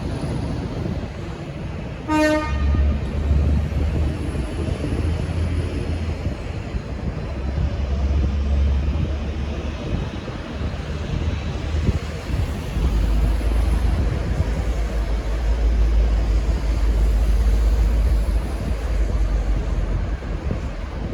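Low diesel rumble of a V/Line N class locomotive's EMD two-stroke V12 as it departs, growing louder about two-thirds of the way through. One brief horn toot sounds about two seconds in.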